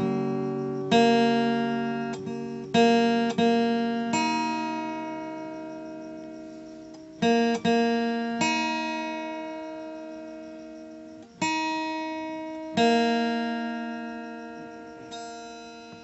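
Background music: slow, sparse acoustic guitar, with single plucked chords left to ring out and fade, a new one every few seconds.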